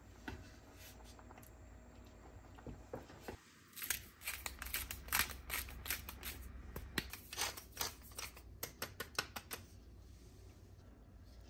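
A hand-held seasoning mill grinds salt over a pot of soup: a dense run of quick, sharp crackling clicks begins about four seconds in and lasts some five seconds. Before that there are a few light knocks.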